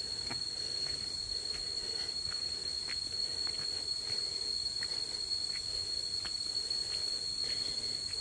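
Forest insects keeping up a steady, high-pitched drone, one unbroken tone, with faint short clicks scattered through it.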